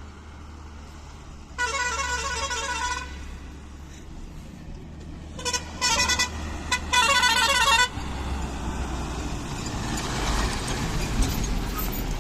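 Bus horn sounding with a rapidly pulsing tone: a long blast about a second and a half in, then a few short toots and another blast between about five and a half and eight seconds in. The bus engine runs underneath and grows louder toward the end.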